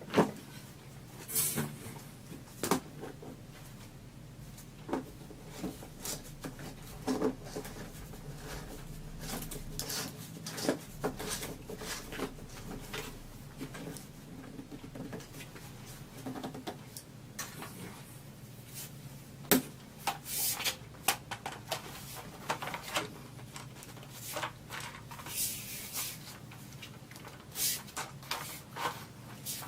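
Plastic shop vac attachments and parts being handled and fitted together: irregular clacks and knocks, with a louder knock at the very start and another about two-thirds of the way through.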